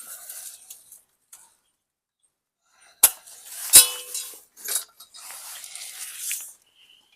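Metal chain clinking as a PTO shaft guard's restraining chain is handled and hooked on: two sharp metallic clanks about three seconds in, the second ringing briefly, with some rustling before and after.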